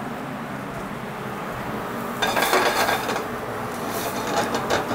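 Diced vegetables going into a frying pan of hot oil, breaking into a sudden sizzle about two seconds in, then a spatula stirring and scraping them around the pan as they fry.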